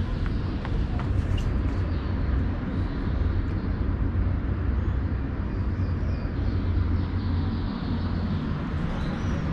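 Steady low rumble of city traffic, with faint high chirps near the end.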